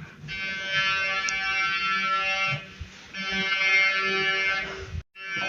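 Emergency alert system alarm: a buzzy electronic tone sounding in bursts of about two and a half seconds, with short breaks between them. Two full bursts are heard, and a third starts near the end.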